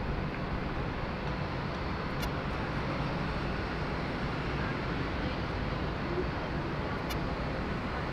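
Boeing 787-9 jet engines running, a steady low rumble. Two faint high blips, about five seconds apart, are electromagnetic interference on the microphone.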